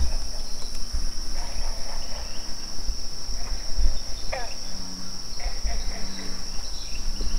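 Crickets chirping in a steady high-pitched drone, with an uneven low rumble on the microphone underneath.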